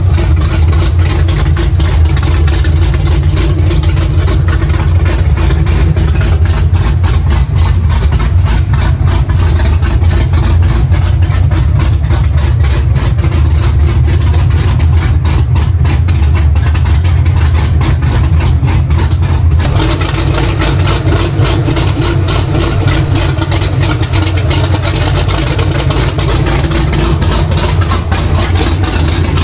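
Supercharged, big-cammed 427 LSX V8 in a ZL1 Camaro idling loudly through open headers, with the choppy idle of a custom-ground race cam.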